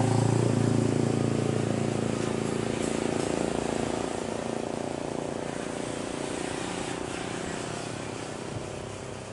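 Engine running with a steady low drone. It is loudest at first and fades away steadily as it moves off.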